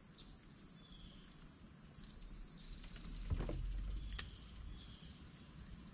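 Quiet handling of a freshly caught bass and fishing rod on a boat deck: a dull thump about three seconds in and a sharp click about a second later, over a low steady rumble.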